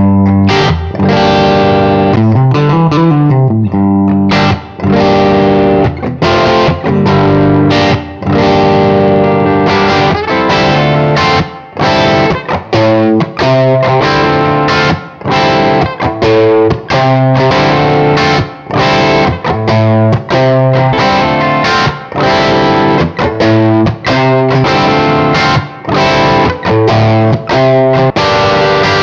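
Distorted electric guitar, a Gibson Les Paul with PAF-style humbucker pickups, playing an overdriven riff of chords and single notes with short breaks between phrases. A couple of bent notes come in the first few seconds.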